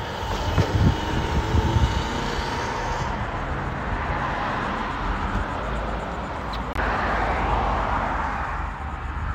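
Steady outdoor rushing noise, with wind buffeting the microphone as low thumps in the first couple of seconds; the sound changes abruptly about seven seconds in.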